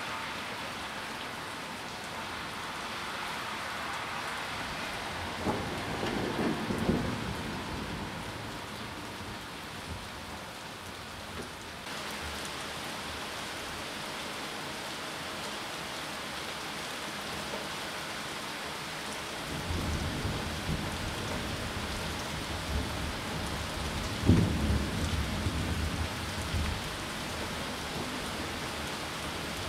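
Steady rain falling on trees during a thunderstorm. A roll of thunder comes about six seconds in, and a longer rumble starts about twenty seconds in, with its loudest clap a few seconds later.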